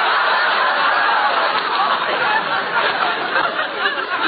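Studio audience laughing loudly in one long, steady wave: the crowd's response to a joke.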